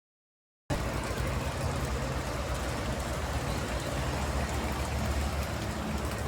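Rain drumming steadily on a water tank, a dense even patter with a low hollow thrum underneath. It cuts in abruptly after under a second of dead silence.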